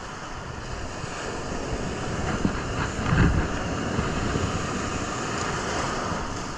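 Surf washing on the beach with wind buffeting the microphone; the rushing swells to its loudest about three seconds in, then holds steady.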